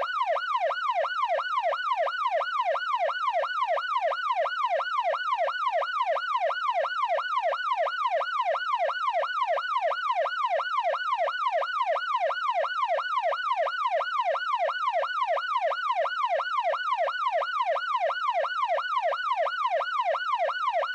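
Electronic police siren in yelp mode: one tone sweeping quickly up and down, about two and a half times a second, steady and unbroken.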